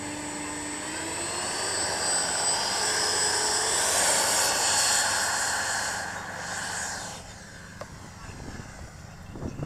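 Electric ducted fan of a radio-controlled F-86 Sabre jet model spooling up for the takeoff roll, a steady whine rising in pitch and growing louder. It fades quickly after about seven seconds as the jet climbs away.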